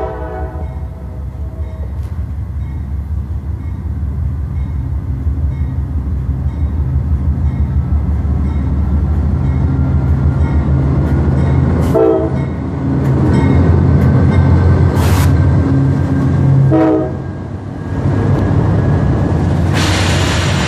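CSX freight train's diesel locomotives approaching and passing close by, the low engine rumble growing louder as they near. The locomotive horn sounds in short blasts twice partway through and again near the end.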